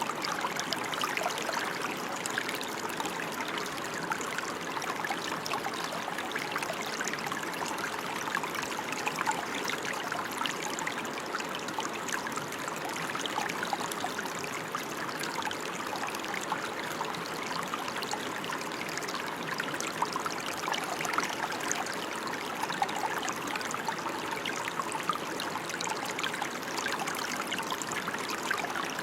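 Steady rain falling: an even hiss made of many small drops, with no pauses.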